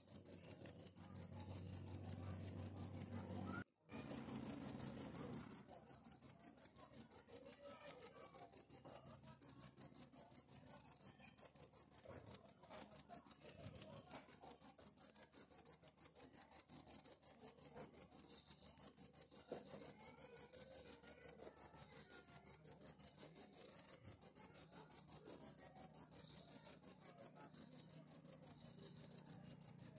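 Crickets chirping: a steady, high-pitched trill of rapid, even pulses that cuts out for a moment about four seconds in.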